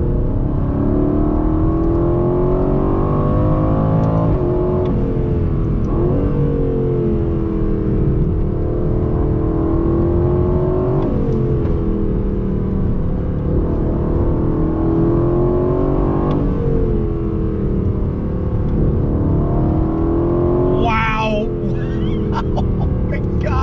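The 2020 Aston Martin Vantage's AMG-derived 4.0-litre twin-turbo V8 pulling hard under full throttle, heard from inside the cabin. The revs rise and fall through the bends, broken by several quick gear changes of the ZF 8-speed automatic.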